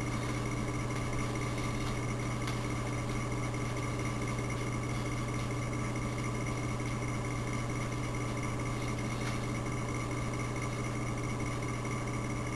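Steady low machine hum with a few faint steady higher tones over it, unchanging throughout.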